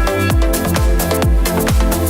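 Electronic dance music with a steady kick drum, about two beats a second, under held synth chords.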